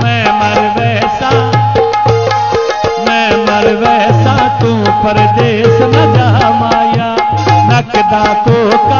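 Instrumental passage of a Punjabi tappe mahiye folk song: tabla playing a quick rhythm under a winding melody line and steady held notes.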